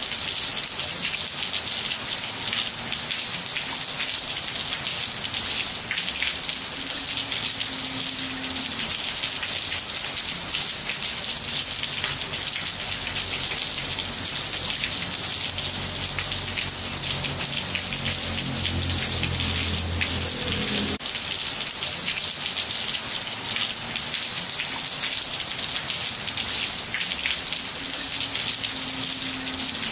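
Rain falling on ceramic floor tiles: a dense, even hiss of drops splashing that starts abruptly. A low rumble builds underneath and stops suddenly about twenty seconds in.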